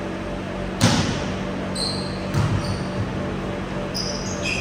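One sharp volleyball impact about a second in, echoing in a large indoor hall, followed by several short high squeaks of sneakers on the court floor.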